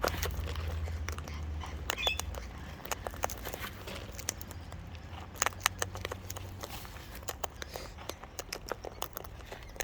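Irregular sharp clicks and taps from a pet cockatoo's beak working close by, over a low hum that stops about two-thirds of the way through. A brief faint chirp sounds about two seconds in.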